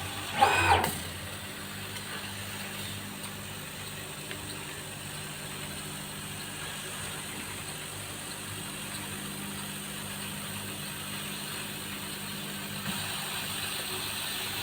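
CO2 CNC laser cutting machine running with a steady low hum. A brief loud pitched sound comes about half a second in.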